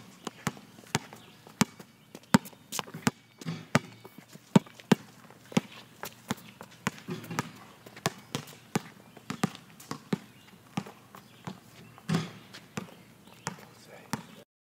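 Several balls bouncing on a hard court: a run of sharp, irregular knocks, a few each second, overlapping at times.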